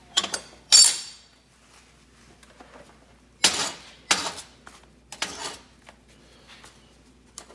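A handful of short metallic clinks and clatters as aluminium test pieces and a TIG torch are handled on a steel welding table; the loudest comes about a second in, with three more in the middle.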